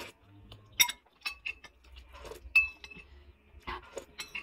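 Metal spoon and fork clinking against a ceramic bowl: several sharp taps, some with a brief ring, while soup noodles are scooped out.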